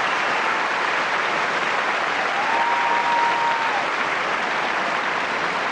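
Tennis crowd applauding steadily after a point, with a faint held high note rising out of it about halfway through.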